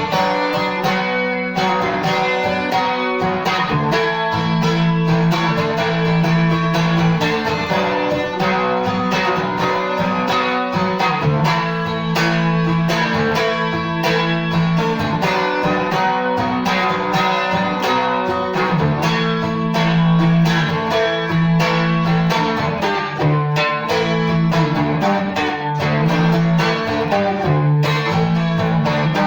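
Seagull Merlin M4, a four-string dulcimer-style instrument, played solo: a melody of quick plucked notes over a steady low drone.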